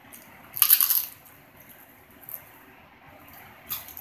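Teeth biting into a dry, crisp Guerrero corn tostada: one loud crunch about half a second in that lasts about half a second, then a shorter, quieter crunch near the end.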